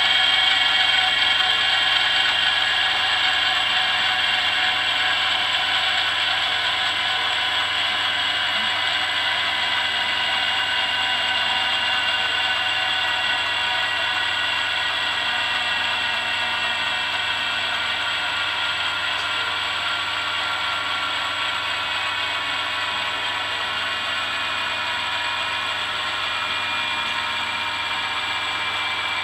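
Dynamic balancing machine spinning a Ducati M900 flywheel for a balance measurement. The steady mechanical whine is made of several tones; it slowly falls in pitch and fades a little.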